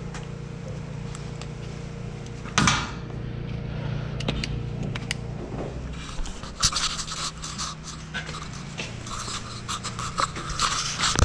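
Metal tools and parts being handled: one loud knock about two and a half seconds in, then a run of quick rattling clicks and scrapes through the second half, over a steady low hum.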